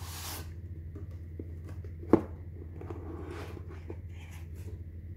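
Cardboard watch-box packaging being handled on a wooden table: a paper sleeve slides off with a short rustle, then one sharp knock of the box against the table about two seconds in, then more rustling of the packaging. A steady low hum runs underneath.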